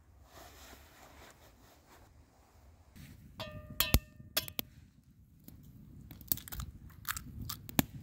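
Eggs being cracked on a stainless steel camping pot: a brief metallic ring about three and a half seconds in, then a run of sharp eggshell cracks and clicks.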